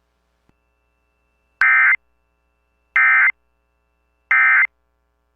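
Emergency Alert System End of Message code: three short, identical bursts of buzzy digital data tone about 1.3 seconds apart, the signal that closes the alert broadcast.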